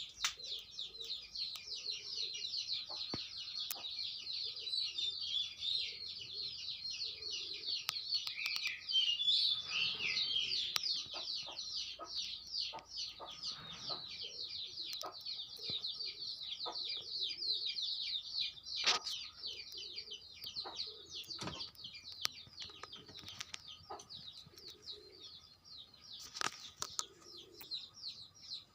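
Birds chirping rapidly and continuously in high, fast notes, over low cooing calls that recur every second or two, with scattered sharp knocks or flaps.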